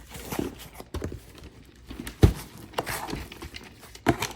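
Irregular knocks, taps and rustling from unpacking a box and handling the parts inside. The loudest thump comes a little over two seconds in.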